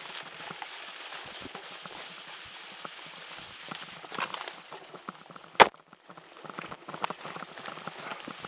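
Mountain bikes riding over a forest trail of dry leaves and twigs: tyres crunching and crackling with a steady rattle of the bikes, and one sharp loud knock about five and a half seconds in.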